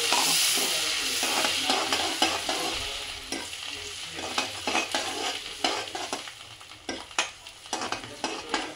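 Cumin seeds sizzling as they roast in hot oil and butter in a metal kadhai, stirred with a metal ladle that clicks and scrapes against the pan. The sizzle is loudest at first and dies down, leaving mostly the ladle's clicks near the end.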